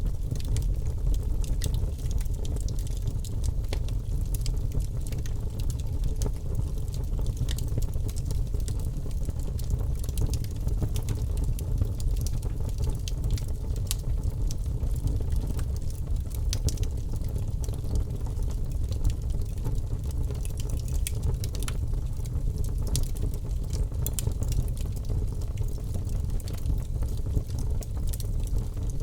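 Wood fire crackling in a fireplace: frequent sharp pops and snaps at irregular intervals over a steady low rumble.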